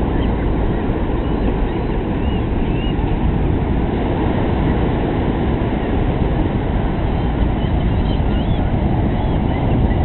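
Steady low rush of surf on a beach, with short high calls from a flock of gulls here and there, a couple about three seconds in and more near the end.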